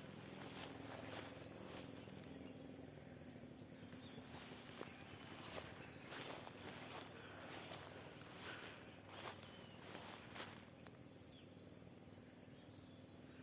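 Insects droning steadily at a high pitch in the pasture, with irregular footsteps through the grass.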